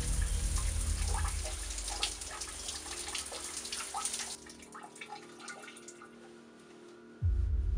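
Shower water spraying onto a tiled floor, cutting off a little past halfway and leaving scattered drips. A deep low drone sits under it, drops away with the water and comes back loudly near the end.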